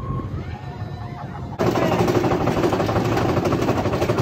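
A mine-train roller coaster rumbling along its track. About a second and a half in, a sudden loud, fast clattering takes over as the train is pulled up a lift hill by its chain, the anti-rollback ratchet clacking.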